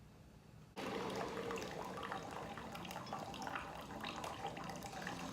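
Liquid sounds, splashing and dripping with a crackle of small clicks, start suddenly about a second in and carry on steadily.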